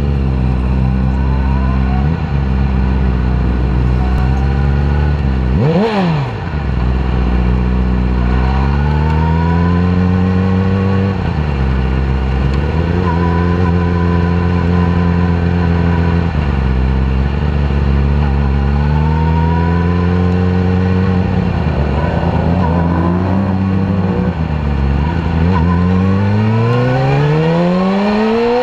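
2010 Yamaha R6's inline-four engine running and being blipped: its pitch rises and falls several times, with one sharp rev about six seconds in and a steady climb in revs near the end. It is misfiring, running on only three cylinders because of bent valves in cylinder four.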